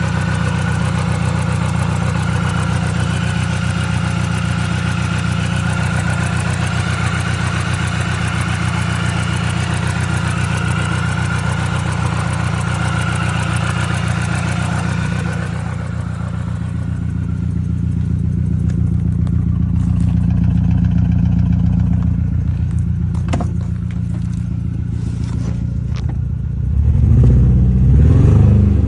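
A 2002 Mini Cooper S's supercharged four-cylinder engine idling with a misfire in cylinder 2. A higher whine over the idle fades away about halfway through, and near the end the engine is revved up.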